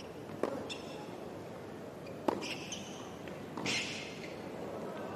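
Tennis rally on a hard court: a ball struck sharply by a racquet twice, about two seconds apart. Short high squeaks follow the hits.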